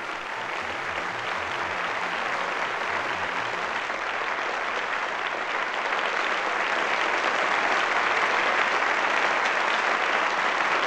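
Audience applauding, a steady mass of clapping that swells slightly. A low, even music beat fades out in the first few seconds.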